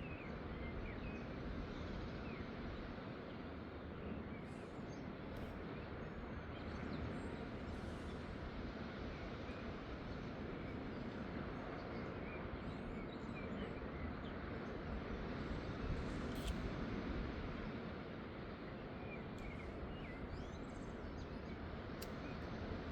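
Steady outdoor background noise with short bird chirps scattered through it.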